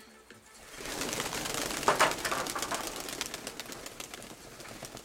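Domestic pigeons' wings flapping and clapping as the birds take off. A burst of wingbeats starts about a second in, is loudest around two seconds, then fades.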